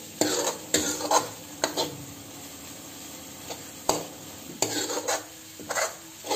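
Metal ladle stirring and scraping green peas and onion-tomato masala around a metal kadhai in short strokes, over a low sizzle of frying. The strokes pause for about two seconds in the middle, broken by a single knock.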